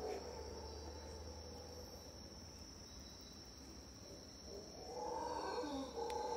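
A steady, high-pitched insect drone from the tropical forest, with howler monkeys' deep, drawn-out howls swelling louder from about five seconds in.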